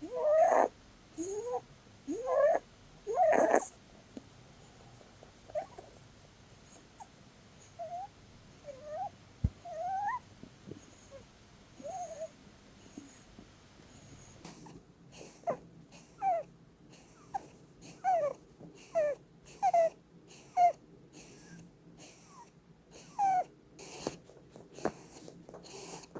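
Holland lop rabbit snoring in her sleep: short whistling squeaks that rise and fall in pitch, each with a breathy hiss, every second or two. The owner puts the snoring down to the breed's short, flat face.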